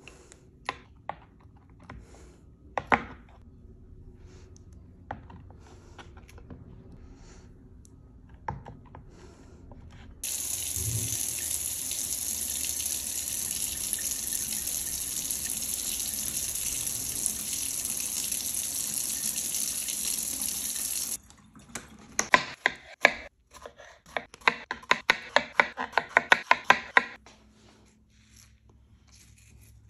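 A kitchen tap runs steadily for about eleven seconds, starting and stopping abruptly. Before it come a few scattered knife taps on a plastic cutting board. After it comes a quick run of sharp clicks, about four a second.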